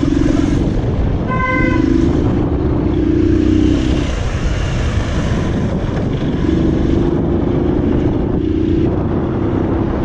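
A motor vehicle engine droning steadily in rough, heavy noise, with a short horn toot about a second and a half in.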